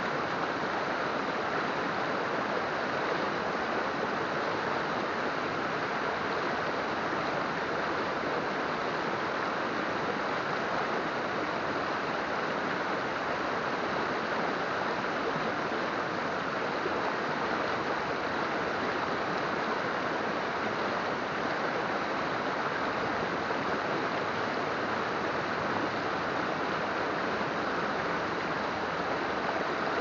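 Mountain river water flowing in a steady, even rush.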